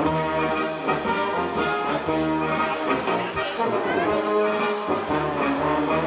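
A Bohemian-Moravian-style brass band playing live: trumpets or flugelhorns, tenor horns, trombones and tuba in sustained notes over a bass line.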